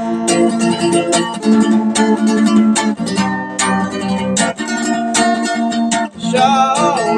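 Acoustic guitar strummed in a steady rhythm, playing the chords of a song's intro. A singing voice comes in near the end.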